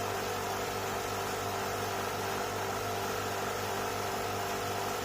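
Steady mechanical hum with several constant tones over an even hiss, unchanging throughout, like a small motor or fan running.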